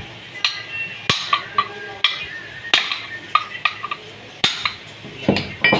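Sharp metal-on-metal clinks and taps, about eight at irregular intervals, each with a short metallic ring, as of tools striking or being set against metal parts.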